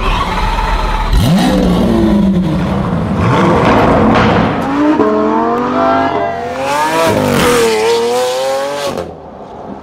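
Lamborghini engines, an Aventador V12 and a Urus V8, revving hard and accelerating in a quick series of cuts, the pitch climbing and falling with each rev. A sharp rev comes about a second in, a run of rising pulls follows later, and the sound drops away abruptly near the end.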